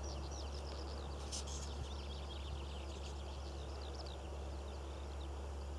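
Small birds singing in a rapid run of high chirps, busiest in the first half, over a steady low rumble.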